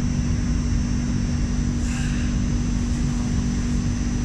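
Hong Kong Light Rail Phase III car heard from inside the cabin while running: a steady low rumble with a constant hum, and a brief faint hiss about two seconds in.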